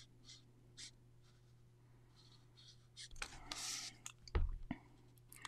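Copic alcohol marker scratching across cardstock in a few short strokes, then the card being slid and turned on a cutting mat with a rustle, and a couple of dull knocks about four seconds in.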